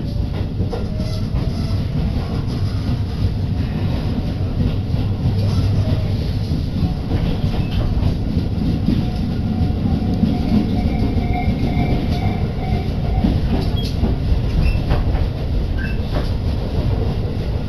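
Tobu Urban Park Line commuter train running between stations, heard inside the passenger car: a steady low rumble of wheels on rails, a faint steady tone through the middle and a few sharp clicks near the end.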